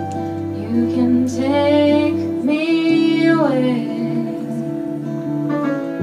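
Live band music: a woman sings a melody over acoustic and electric guitars and piano, with the voice strongest in the first few seconds and the instruments holding sustained notes underneath.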